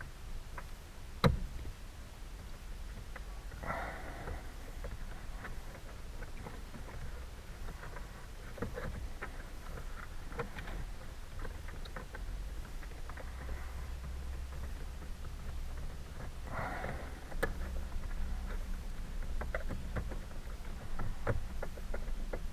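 Hand tools working at the screws of a steering-column ignition switch: scattered light clicks and taps with a couple of short scraping sounds, and one sharp click about a second in.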